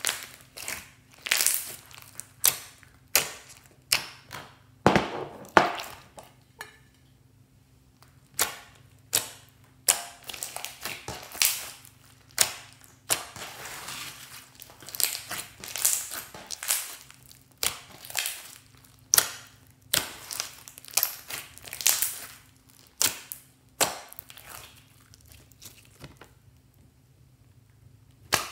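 Glossy slime squeezed, kneaded and stretched by hand, giving irregular clusters of sharp sticky pops and crackles as air pockets in it burst. It goes quiet for a moment near the end.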